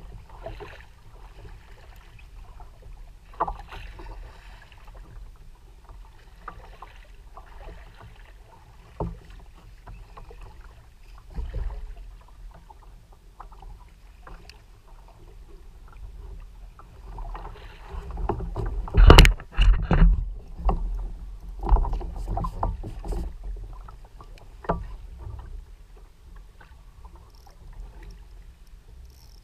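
Water slapping and lapping against the plastic hull of a 2014 Hobie Revo 13 kayak in choppy sea over a steady low rumble, with scattered knocks. Just past the middle comes a loud burst of splashing and knocks lasting a few seconds.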